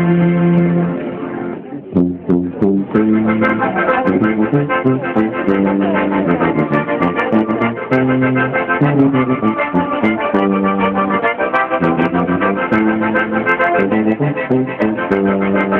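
A brass band of slide trombones and a sousaphone playing. A long held chord ends about a second and a half in, then after a short break the tune goes on with a bouncing bass line under the trombones.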